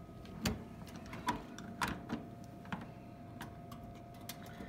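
Irregular clicks and knocks from an old jukebox's coin mechanism and buttons being worked by hand, about seven in all, over a steady faint hum; no record plays.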